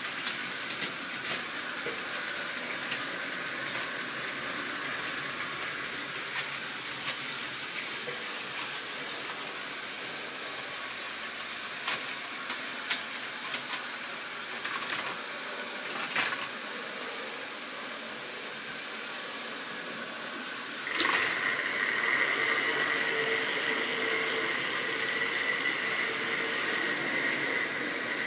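Model railway wagons being handled on the track, with a few sharp plastic clicks. About three-quarters of the way in, a model locomotive's electric motor starts up with a steady whine as the train of plastic tank wagons runs along the track.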